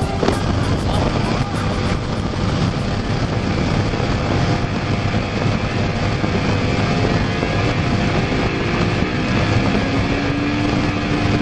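Mercury outboard on a ski race boat running flat out, with water rushing and wind buffeting the microphone. The engine note wavers in pitch near the end.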